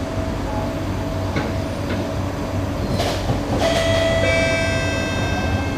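Singapore MRT electric train pulling away from a station, heard from inside the carriage: a steady low rumble, a short hiss about three seconds in, then the whine of the traction motors at several steady pitches as the train starts to move.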